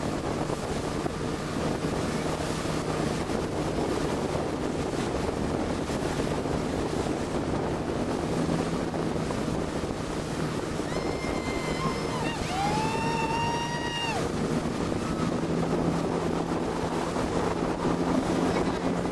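Towing motorboat's engine running steadily under a loud rush of wind on the microphone and churning wake water. A little past the middle come two high, drawn-out shrieks from a person.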